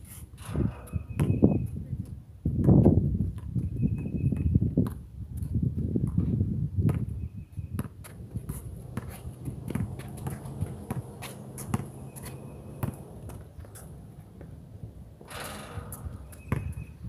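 Basketball bouncing and being dribbled on an outdoor hard court, with scattered sharp bounce thuds and the players' footsteps scuffing the surface.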